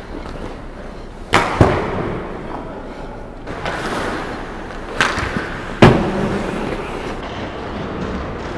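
Ice hockey play: sharp cracks of sticks and puck striking, two close together about a second and a half in and two more about five seconds in, each ringing briefly in the arena, with skates scraping the ice between them.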